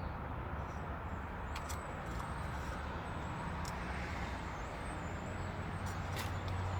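A car engine running steadily at low revs, getting slightly louder near the end, with a faint high whine over it and a few light clicks.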